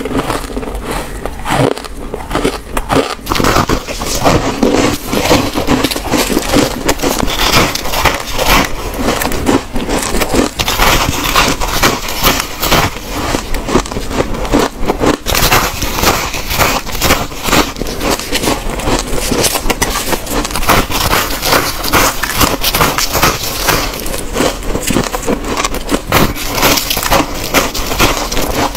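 Close-miked crunching of freezer frost being bitten and chewed, a dense run of crisp crackles and crunches, with a metal scraper scraping loose frost in the freezer.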